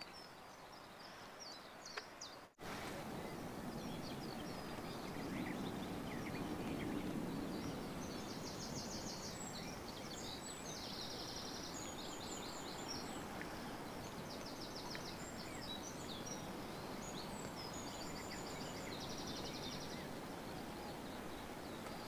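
Small birds singing outdoors over a steady breezy hiss: scattered high chirps and several rapid, high-pitched trills that repeat every few seconds. The hiss steps up after a brief break about two and a half seconds in.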